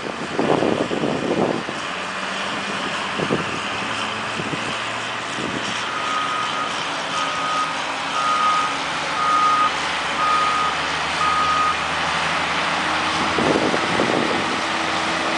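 Heavy diesel earthmoving machines running steadily: a motor grader and a tractor pulling a disc harrow. About six seconds in, a reversing alarm beeps six times, roughly once a second. Near the end an engine's pitch rises.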